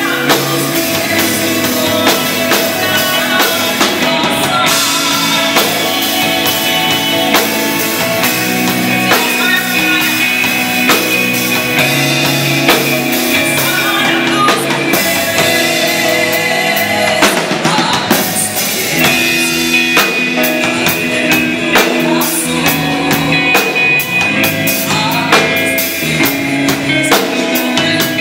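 Live worship music: a band with drum kit, electric guitar and keyboard playing steadily, with a woman singing into a microphone.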